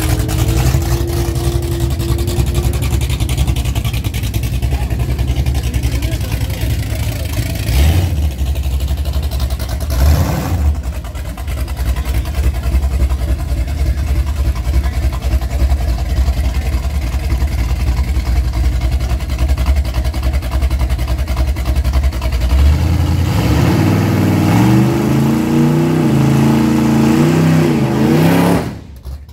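Drag truck's 440 big-block V8 running, with two short surges in revs about eight and ten seconds in. Near the end come a series of rising and falling revs, which cut off abruptly.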